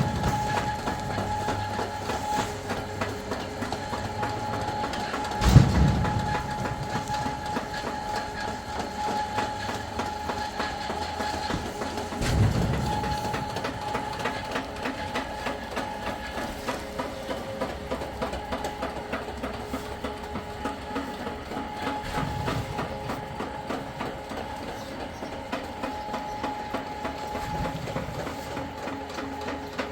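Steady mechanical clatter with a constant whining tone running through it, broken by a few low thuds, about one every five to ten seconds.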